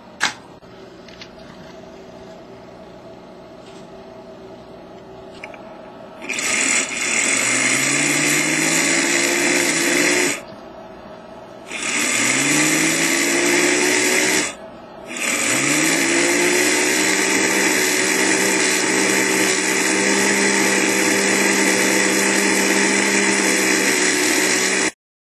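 Small electric motor in an HO-scale model, switched on three times. Each time it starts with a rising whine that levels off into a steady hum over a hiss. It cuts out briefly twice, then runs on and stops suddenly near the end.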